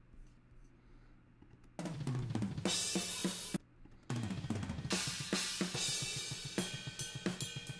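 Raw overhead-microphone tracks of a natural-sounding acoustic metal drum kit played back soloed: cymbals and ride ringing over snare and kick hits. The drums start about two seconds in, break off for half a second near the middle and pick up again.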